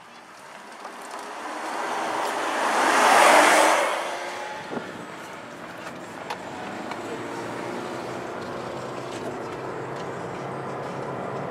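Lamborghini Aventador Roadster's V12 exhaust building to a loud pass-by about three seconds in, then fading. It is followed by a steady engine and road drone heard from inside a car following it.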